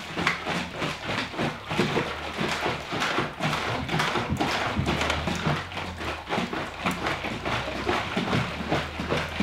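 Honey-and-water mead must, about 30 kg, sloshing heavily inside a lidded plastic fermenting bucket as it is rocked back and forth by hand, with a steady rhythm of sloshes and knocks. The shaking dissolves the unheated honey into the water before the yeast goes in.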